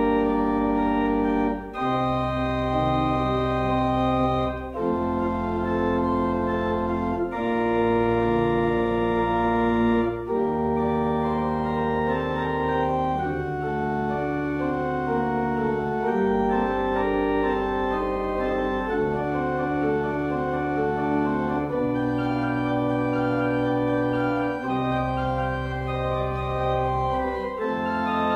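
Organ music: slow, sustained chords over held bass notes, the chord changing every two to three seconds.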